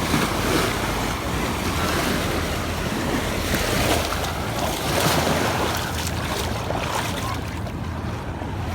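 Black Sea surf washing onto the beach, a steady rushing with gentle rises and falls, with wind buffeting the microphone.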